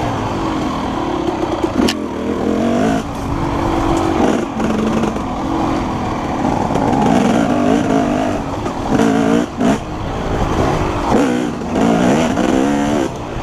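KTM 250SX two-stroke dirt bike engine being ridden hard, its pitch rising and falling again and again as the throttle is opened and closed. A sharp knock sounds about two seconds in.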